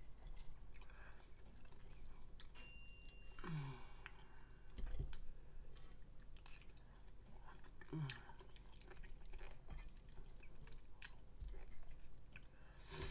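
A woman chewing food with soft clicks and crackles, with a brief, falling vocal hum twice, about three and a half seconds and eight seconds in.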